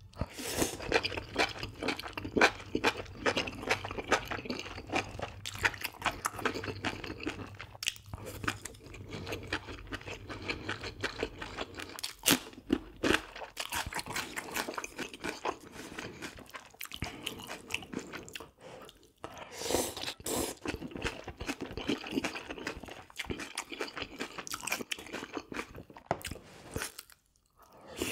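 Close-miked chewing and crunching of a mouthful of beef bulgogi with crisp fresh napa-cabbage kimchi (geotjeori), many irregular wet crunches with a few short pauses between bites.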